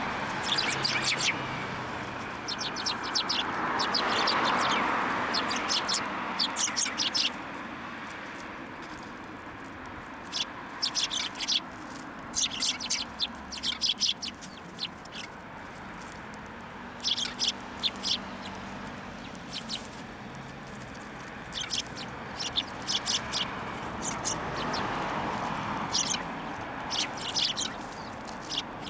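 Small birds chirping in quick clusters of short, sharp notes, in bursts separated by pauses. A broad rushing sound swells and fades twice, about four seconds in and near the end.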